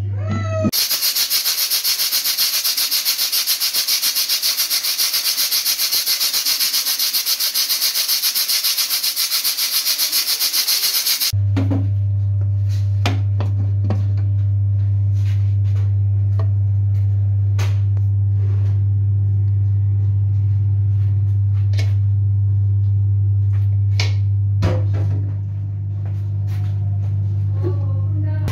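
Aluminium pressure cooker venting steam: a loud, rapidly pulsing hiss for about ten seconds that cuts off suddenly. A steady low hum with scattered clicks follows.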